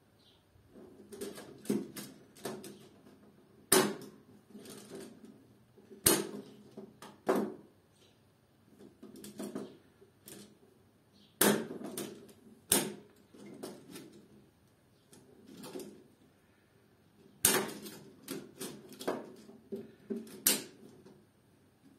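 Miniature circuit breakers being snapped onto a steel DIN rail one after another: a sharp plastic-on-metal click every few seconds, with lighter clacks and rattles of the plastic housings between them as each breaker is pushed into line.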